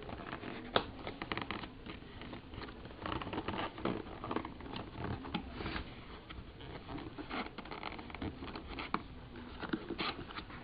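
Laptop packaging being handled: irregular rustling and scraping with many light clicks and taps.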